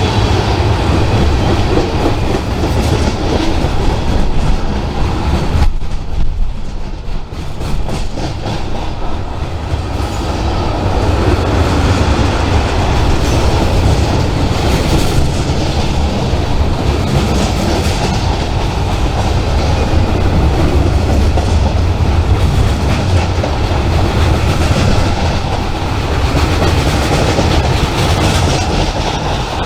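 Freight train cars rolling past, wheels clattering over the rail joints with a steady low rumble; the level dips briefly about six seconds in.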